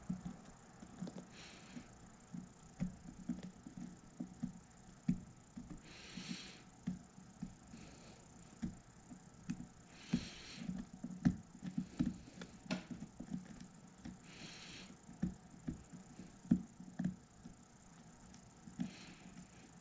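A small metal hand tool picking and scraping at a juniper bonsai's trunk, stripping bark to make a shari: irregular light taps and clicks, with a short scraping stroke about every four seconds.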